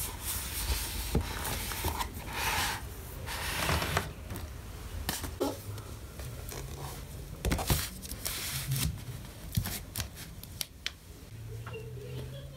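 Books being slid out of a shelf and handled: paper and card covers rubbing and scraping against each other, with several light knocks and taps as they are moved.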